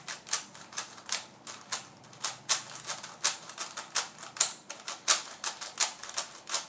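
YJ GuanLong 3x3 speed cube turned quickly by hand: a rapid, irregular run of plastic clicks and clacks as its loosely tensioned layers snap round.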